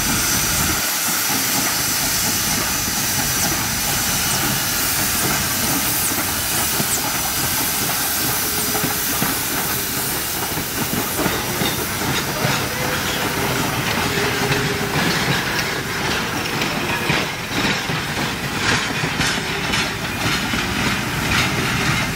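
Steam locomotive passing close by with a train of passenger cars: a steady hiss of steam, joined in the second half by the clicking and clatter of wheels on the rails as the cars roll past.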